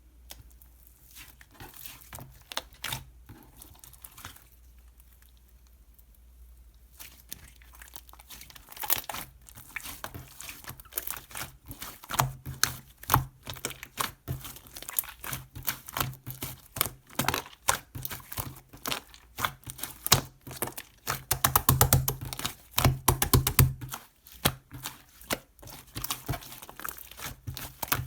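Close handling noises: a run of sharp clicks and taps mixed with crinkling and tearing, sparse and faint at first, then quick and dense from about nine seconds in.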